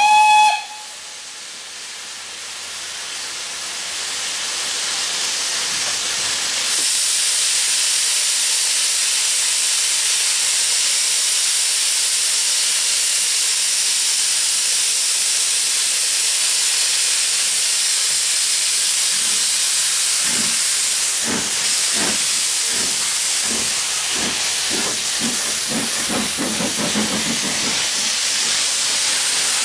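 Double-headed steam train starting away, with Somerset & Dorset 7F 2-8-0 No. 53809 at the camera: a short whistle at the very start, then a loud, steady hiss of steam from the open cylinder drain cocks. About two-thirds of the way through, slow exhaust chuffs begin and gradually quicken as the locomotives get under way.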